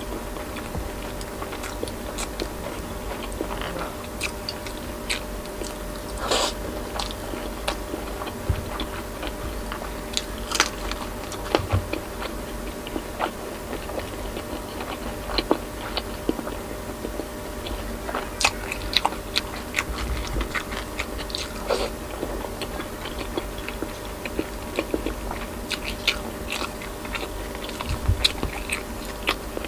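Close-miked eating sounds: chewing and biting of boiled pork and leafy greens. Many short, irregular wet clicks from the mouth run over a faint steady hum.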